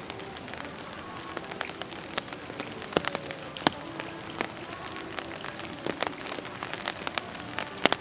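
Steady rain falling, a constant hiss broken by many sharp, irregular drip hits as heavy drops strike nearby surfaces.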